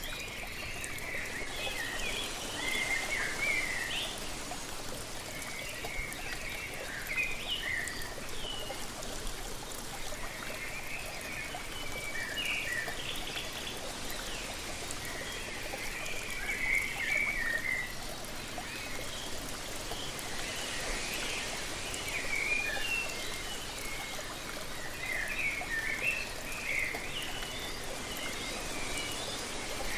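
Steady rush of falling water from a waterfall, with songbirds singing short chirping phrases every few seconds over it.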